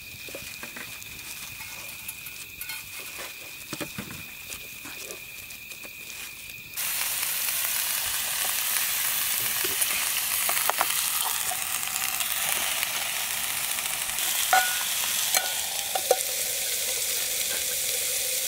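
Food sizzling loudly as it fries in a hot pan, starting abruptly about seven seconds in, with a few sharp clicks of utensils over it. Before that, a quieter stretch with a faint steady high tone and scattered light clicks.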